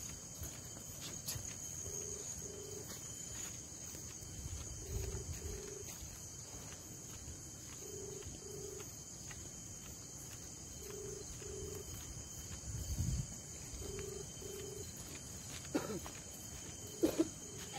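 Steady high-pitched chorus of night insects such as crickets, with a pair of short low notes repeating about every three seconds. A few footsteps are heard walking along a path.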